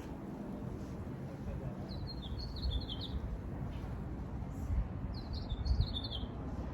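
A bird chirping: two short runs of quick, high, falling notes, about two seconds in and again about five seconds in, over a low rumble.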